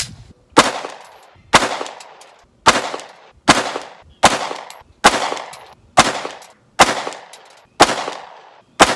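About ten shots from a Glock pistol fitted with an aftermarket AIM threaded barrel, fired slowly at an even pace of roughly one a second, each crack trailing off in a short echo.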